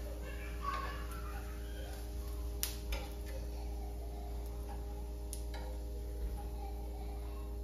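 A steady mechanical hum with a few sharp, light clicks of a cooking utensil against a frying pan.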